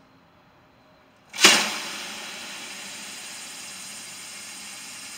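Pressurised A/C flush can discharging through a hose into an air-conditioning line: a sudden loud hiss about a second and a half in, easing to a steady hiss.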